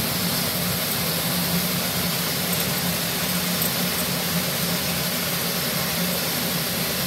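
A steady, even hiss with a low hum underneath, unchanging throughout: a continuous machine-like running noise.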